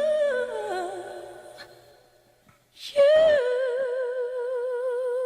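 A solo voice singing without accompaniment: a gliding phrase that dies away, then about three seconds in a long held note with a steady vibrato.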